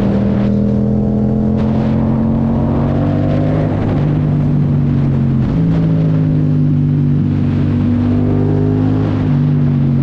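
Yamaha MT-07's 689 cc parallel-twin engine running under way as the motorcycle is ridden along a road, a steady engine note that shifts a little in pitch a few times.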